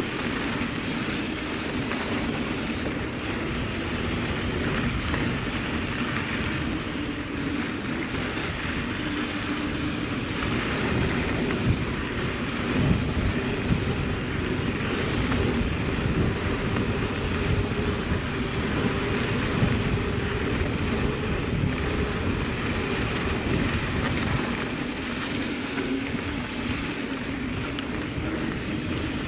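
Mountain bike riding fast on a sandy dirt trail: steady tyre noise on the dirt and wind on the microphone, with a few sharp knocks from the bike near the middle.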